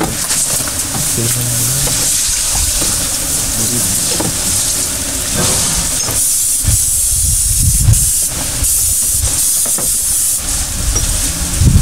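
A steady high hiss, with a brief low murmur about a second in and a few dull thumps around the middle.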